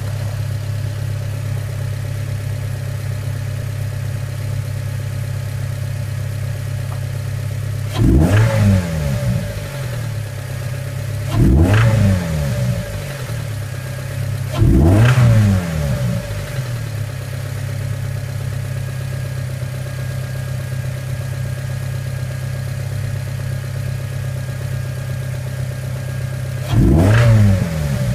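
2006 Mazda Miata NC's 2.0-litre four-cylinder engine idling steadily and blipped four times, each blip rising and falling back to idle. The engine has a spun bearing.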